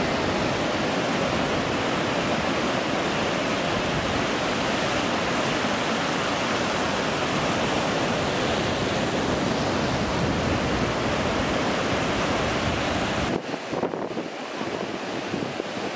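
Sea surf breaking on a sandy beach: a steady, dense rush of waves. About 13 seconds in it cuts to quieter, uneven gusts of wind on the microphone.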